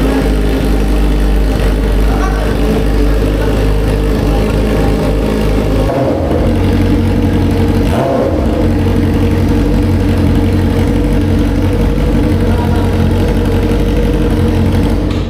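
Yamaha R6 inline-four engine running loud through a newly fitted titanium full exhaust, idling with a couple of short revs, about two seconds in and about eight seconds in.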